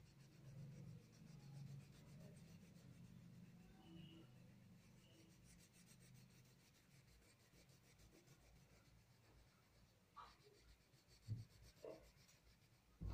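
Faint rubbing and scratching of colouring strokes on paper as an area is filled in, with two short soft knocks near the end.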